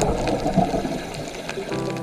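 A rushing, water-like noise fading away, then a steady held tone starting near the end.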